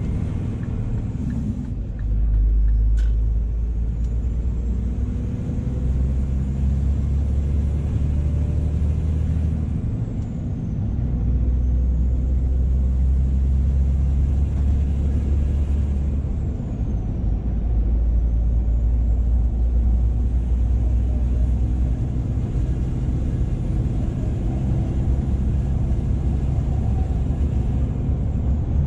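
Scania R480 truck's six-cylinder diesel and tyre noise heard from inside the cab at road speed: a steady low drone that dips briefly a couple of times.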